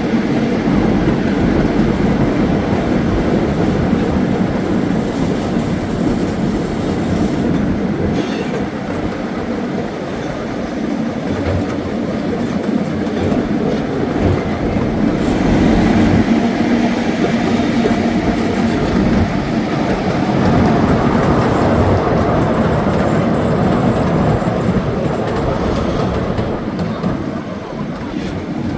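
Miniature scenic train, a replica C.P. Huntington locomotive pulling its cars, running steadily along the track, its wheels rolling on the rails.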